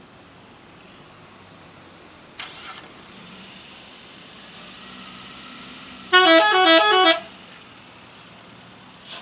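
Bus telolet horn playing a quick multi-note melody that steps up and down in pitch, loud for about a second, beginning about six seconds in. A shorter, fainter burst comes a few seconds earlier, over a low steady traffic hum.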